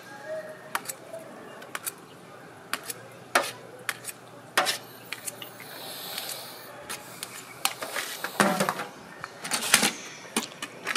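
A scoop knocking and scraping against a metal taho bucket while silken tofu is scooped into plastic cups: scattered sharp clinks and taps.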